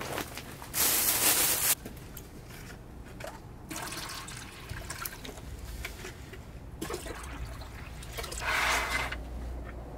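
Water poured from a plastic bottle into a water jug in several separate pours, the loudest rush about a second in and another near the end.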